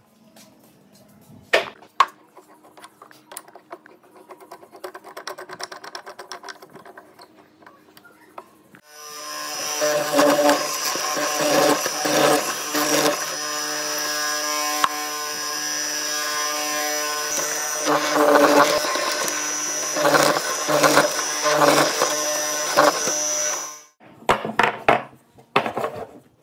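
Benchtop hollow-chisel mortiser's electric motor running steadily for about fifteen seconds as it cuts a square mortise into a pine block, with louder surges while the chisel is working, then cutting off suddenly. Sharp wooden knocks before it starts and after it stops as blocks are handled and set down on the bench.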